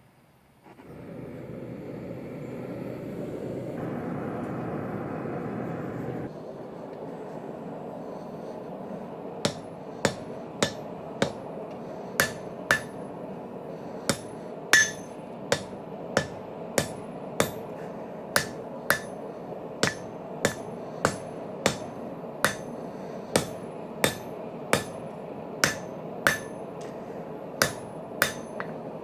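Hammer blows on a spring-steel bar being forged into a knife blade on an anvil, about one and a half strikes a second, each with a bright ring; the hammering starts about a third of the way in. Underneath runs a steady rushing noise, louder for a couple of seconds near the start.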